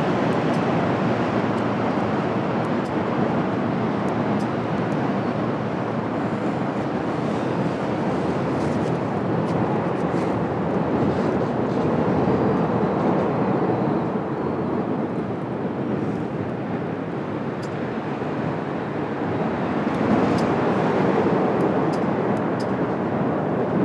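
Steady rushing wind blowing across the microphone, slowly swelling and easing, with a few faint ticks.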